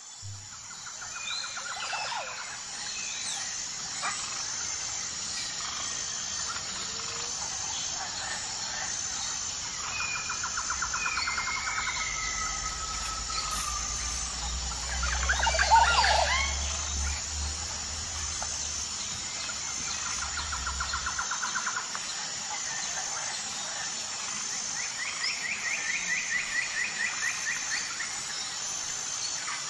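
Birds chirping and calling in short trills and whistles over a steady high-pitched drone, with the loudest burst of calls about halfway through. A low rumble sits underneath for several seconds in the middle.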